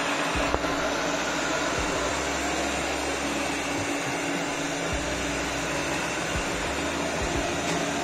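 Eufy RoboVac G10 Hybrid robot vacuum running with a steady whir, vacuuming and mopping as it goes with its wet mop cloth fitted.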